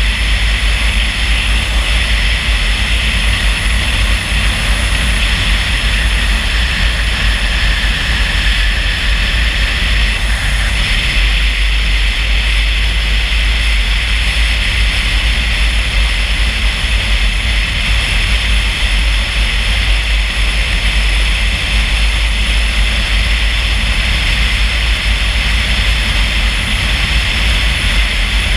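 Steady road noise of a car being driven, with a heavy low rumble.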